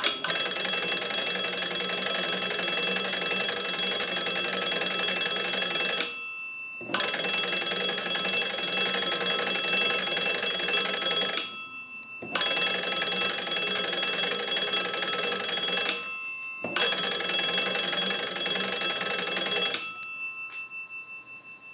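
Stromberg-Carlson wooden wall crank telephone's twin gongs ringing, driven by its hand-cranked magneto. There are four long rings of about four to six seconds each with short breaks between them, then the bells ring out and fade near the end.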